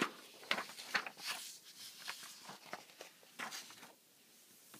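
Paper being handled as a fresh sheet is brought out: a run of short rustles, scrapes and light knocks that stops a little before four seconds in.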